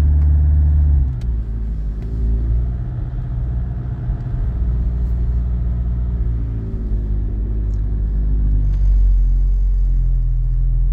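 Renault Laguna III's 2.0 dCi four-cylinder diesel engine heard from inside the cabin while driving. Its low drone changes about a second in, and after that its pitch rises and falls with engine speed.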